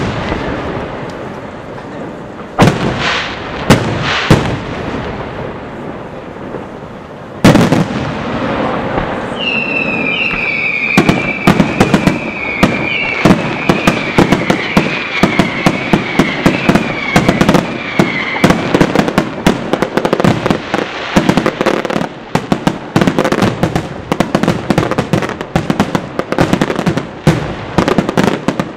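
Aerial fireworks: a few heavy shell bursts a few seconds apart, then a wavering high whistle for about nine seconds, and from about eleven seconds on a dense barrage of rapid bangs and crackle.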